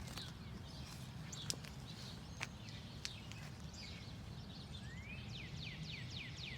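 Songbird singing a fast run of down-slurred whistled notes, picking up about five seconds in, over a steady low outdoor rumble. Three short clicks sound in the first half.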